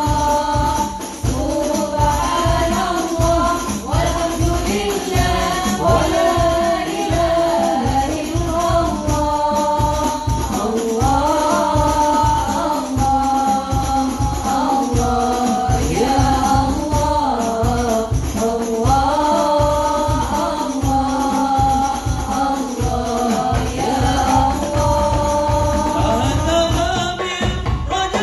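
Devotional song sung by a lead voice with women's backing vocals, over a steady beat of hand drums with tambourine jingles.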